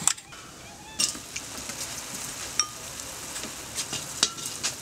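Metal kitchen utensils knocking and clinking against a cooking pot over a steady high hiss, with one short ringing clink about halfway through.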